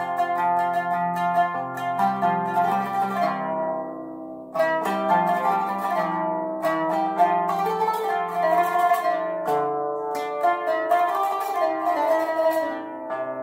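Instrumental music played on plucked strings: quick runs of picked notes over steady low notes, with the notes dying away to a short pause about four and a half seconds in before the playing picks up again.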